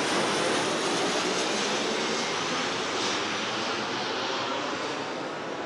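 A steady rushing noise without a clear pitch, fading slowly.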